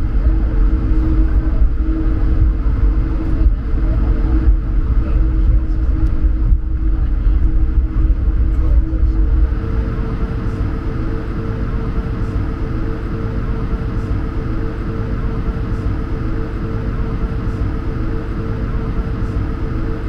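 Airbus A220-100 engines, Pratt & Whitney PW1500G geared turbofans, heard from inside the cabin as a steady hum with two held tones over a deep rumble while the jet taxis. The deep rumble eases about nine and a half seconds in, and the higher of the two tones grows a little stronger.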